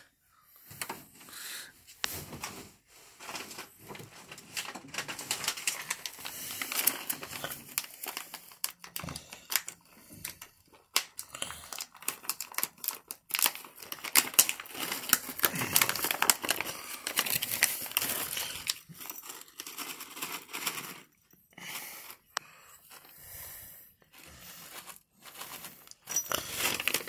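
Shiny crinkly wrapping being handled up close, crinkling and crackling in irregular bursts with a few short pauses.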